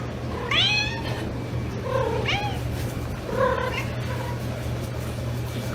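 Domestic cat meowing three times, each call about half a second to a second long, over a steady low hum.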